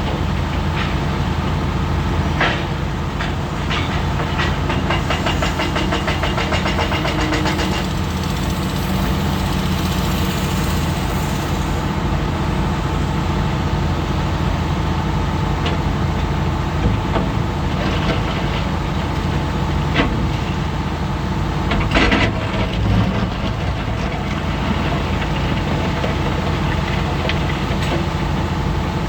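Komatsu PC400 hydraulic excavator's diesel engine running steadily under work, with a stretch of fast rattling a few seconds in and several sharp clanks, the loudest about two-thirds of the way through.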